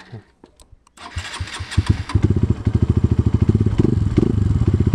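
Hero Xpulse 200 4V single-cylinder motorcycle engine being started. After a few faint clicks it cranks from about a second in, catches about two seconds in, and runs on at an even, quick beat.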